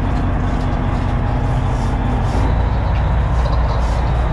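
Fishing boat's engine running steadily, a deep drone that gets louder and lower about two seconds in.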